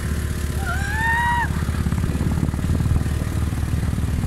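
Motorcycle engine running steadily while riding on a rough gravel dirt track, with a brief rising whistle-like call about a second in.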